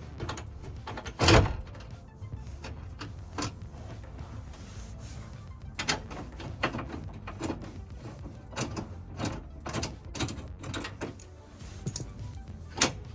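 Irregular clicks, knocks and clunks of hand tools and metal parts being worked inside a car door, with a loud knock about a second in and another near the end.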